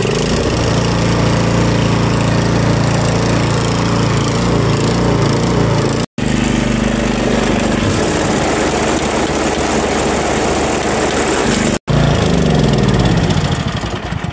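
Craftsman snowblower's small four-stroke engine running steadily just after an electric start, with the auger spinning, broken by two momentary gaps. Near the end the engine is shut off and winds down, its pitch falling and the sound fading.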